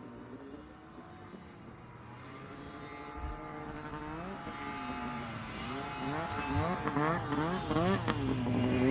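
Snowmobile engine approaching and growing steadily louder, its pitch rising and falling several times with the throttle over the last few seconds.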